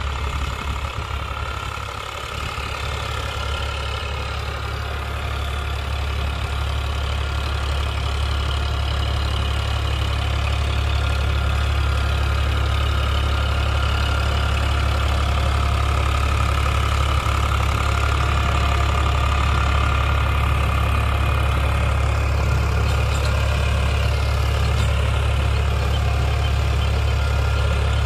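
Eicher 551 tractor's three-cylinder diesel engine running steadily under load while pulling a rotary tiller through the soil. It grows louder over the first ten seconds or so, then holds steady.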